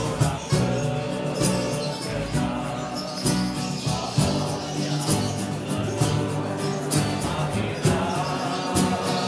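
A song played by a band, with singing over instruments and a percussion beat striking about once a second.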